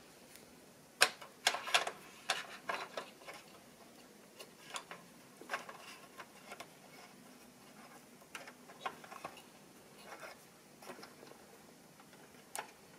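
Scattered, irregular plastic clicks and light taps as a 1:18-scale action figure is handled and fitted into the turret hatch of a plastic toy Humvee. The clicks come thickest in the first few seconds, then sparser.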